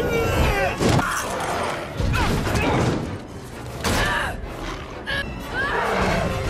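Film battle soundtrack: orchestral score mixed with shouts and yells, cut by several heavy crashing impacts.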